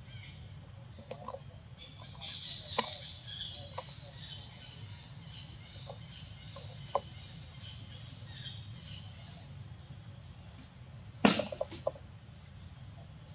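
A macaque chewing and handling its food, with small wet clicks and smacks, over birds chirping steadily in the forest. Near the end come two louder, sharp crackling clicks.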